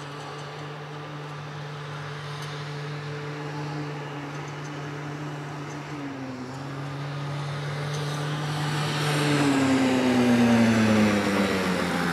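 Small youth ATV engine running at a steady pitch, getting louder as it approaches; about two seconds before the end its pitch slides down as it passes close by.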